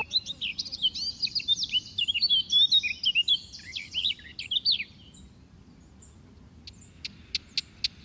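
Small songbirds chirping and twittering in quick, overlapping high notes. The calls thin out and stop about five seconds in, leaving only a few faint ticks near the end.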